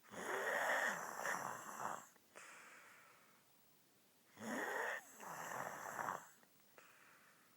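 A sleeping woman snoring: two long snores about four seconds apart, each trailing off into a softer breath.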